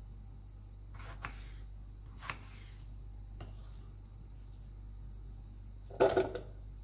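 A kitchen knife slicing through tomatoes onto a wooden cutting board, a few soft cuts about a second apart. Near the end comes a louder short clatter as tomato pieces drop into a plastic food processor bowl.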